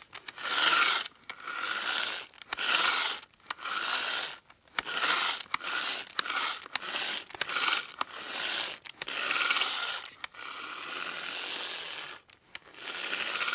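Manual hand drill being cranked in short strokes: about a dozen bursts of whirring, grinding noise, each under a second, with a click between strokes and one longer, steadier turn about two-thirds of the way through.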